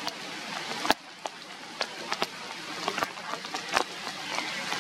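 Rain falling on forest leaves: a steady hiss with many sharp drops striking close by at irregular moments.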